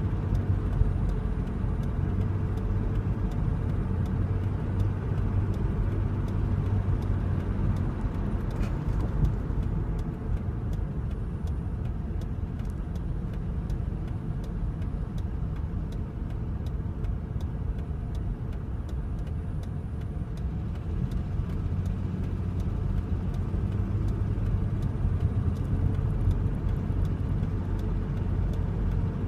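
A car driving, with a steady low engine and road drone that eases off about a third of the way in and builds again toward the end.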